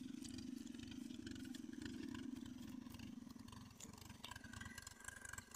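Faint, steady hum of an irrigation water-pump engine running in the distance over a low rumble. The hum fades about three and a half seconds in.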